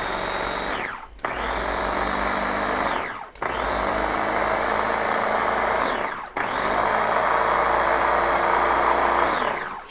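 Ninja Express Chop food chopper's electric motor running with the bowl empty, in four bursts separated by short stops. At each stop its whine glides down and at each restart it winds back up. The motor is freshly greased with Vaseline, which is being worked around the shaft, so it starts out slow and gradually speeds up.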